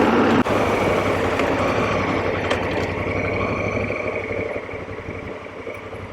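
2019 Honda Africa Twin's parallel-twin engine running on the move, with road noise, gradually fading away toward the end.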